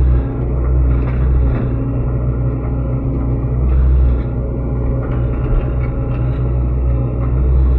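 SANY SY75C excavator's diesel engine running under working load, its low drone swelling and easing every few seconds as the machine digs.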